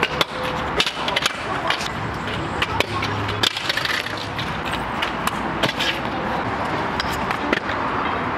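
Freestyle scooter wheels rolling on smooth concrete, with repeated sharp clacks as the deck and wheels hit the ground during flatland tricks.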